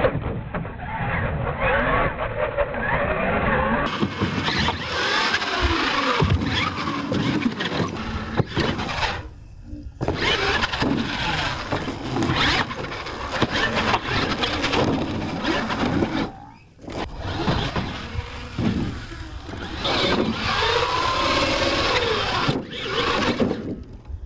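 Radio-controlled monster truck's motor whining up and down in pitch as it is throttled hard through jumps and wheelies, with its tires scrabbling on dirt. The sound drops out briefly twice.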